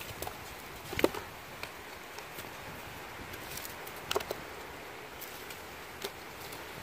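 Dry dead wood cracking and splintering as pieces are pulled off a branch by hand: a few sharp cracks, the loudest about a second in, a pair just after four seconds and one more near six seconds, over a steady hiss.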